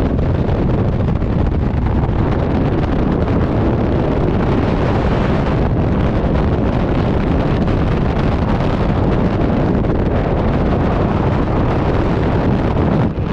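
Freefall wind rushing over a skydiver's camera microphone: a loud, steady buffeting roar.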